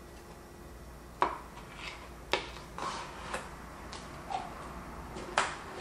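Kitchen utensils and dishes being handled on a counter: a string of about eight light clicks and knocks, starting about a second in, at irregular spacing.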